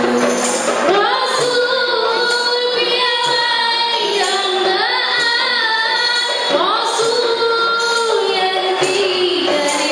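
Women's qasidah rebana group singing Islamic devotional song in unison, held notes sliding up at the start of phrases, with rebana frame drums and jingles keeping time.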